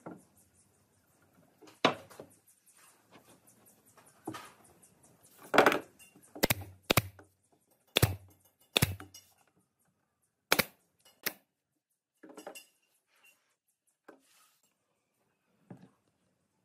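A pneumatic brad nailer firing nails into a pine frame corner: about eight sharp shots at irregular intervals, most of them in the middle stretch, with fainter knocks of the wood being handled near the end.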